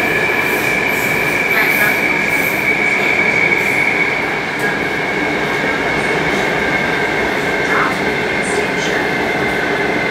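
Taipei Metro Circular Line train heard from inside the car, pulling into a station: a steady running rumble of wheels and car body with a steady high-pitched tone over it.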